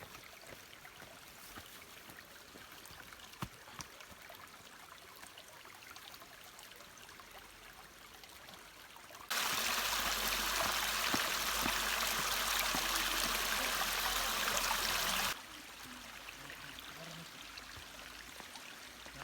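Flowing water rushing steadily: faint for the first half, then a much louder, even rush that cuts in suddenly about halfway through and cuts out just as suddenly six seconds later.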